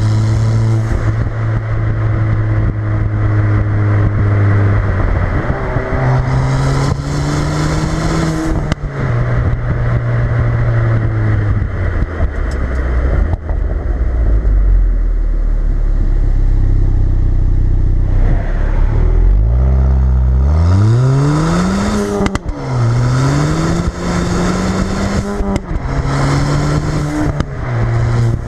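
Ford Fiesta ST's turbocharged 1.6-litre four-cylinder through a resonator-deleted exhaust, driven on the road. It holds a steady note, rises, then drops to a low steady drone. From about two-thirds of the way in it pulls hard through the gears, the pitch climbing steeply and falling back at each upshift about three seconds apart. Short sharp pops at the gear changes come from a crackles-and-pops tune.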